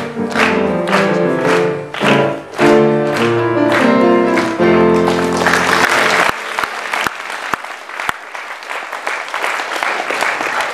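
Music for a stage number ends on a held final chord about six seconds in. Audience applause rises over its last notes and carries on after it stops.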